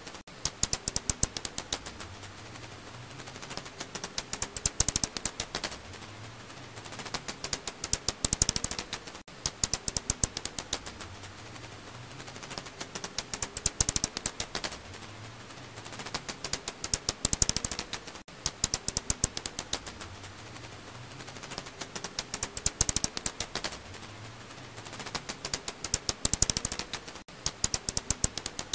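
Black house bat (Hypsugo alaschanicus) calls: rapid trains of sharp clicks in bursts about every four seconds, over a steady hiss.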